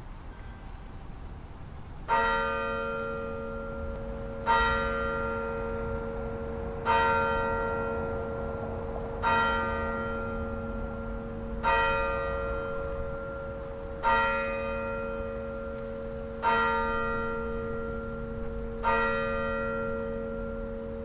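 A single church bell tolling slowly, struck eight times at the same pitch about every two and a half seconds. Each stroke rings on into the next, over a low steady rumble.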